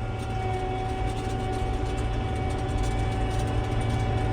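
Combine harvester's diesel engine running steadily while the machine travels, heard from inside the cab, with a low hum and a thin steady whine.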